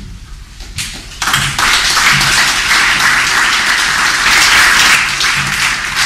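Audience applauding, the clapping starting about a second in and holding strong.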